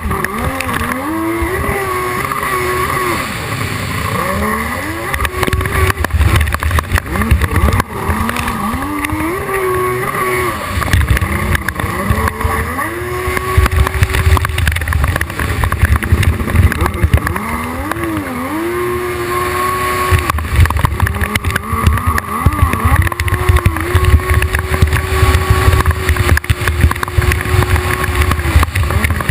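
Hydrospace 1100 racing jet ski engine revving hard, its pitch rising and holding steady several times with a drop between each, over a loud low rumble.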